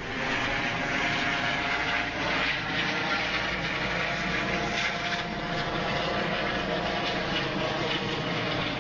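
A steady engine drone at a constant pitch, with a rushing noise over it.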